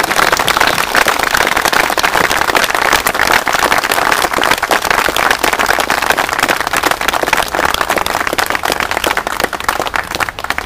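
Crowd applauding, a dense steady clapping that dies away near the end.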